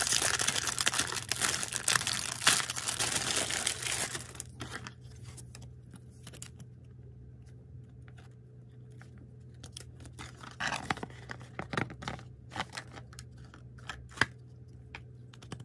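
Clear plastic packaging being crinkled and torn open by hand, dense and loud for the first four seconds or so. It then gives way to quieter scattered rustles and light taps as cardboard and plastic pieces are handled, with a few louder crinkles later and one sharp click near the end.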